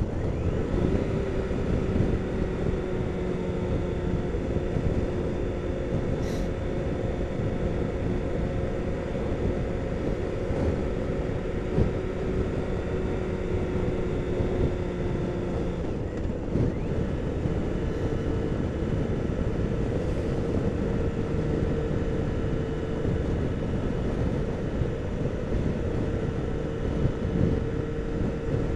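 BMW K1600's inline-six engine running steadily on the move, under wind noise. About halfway through, its note steps up to a higher pitch and holds there.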